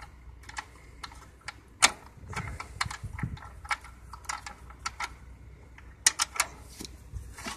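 Scattered light clicks and taps, irregular, from a hand working at hoses and fittings in a tractor's engine bay, with a sharper click about two seconds in and a quick run of clicks about six seconds in.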